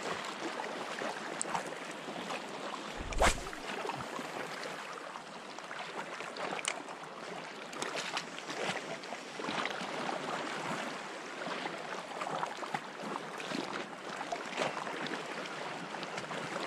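Gentle lapping of shallow sea water around shoreline rocks, a steady wash with small irregular splashes, and a single knock about three seconds in.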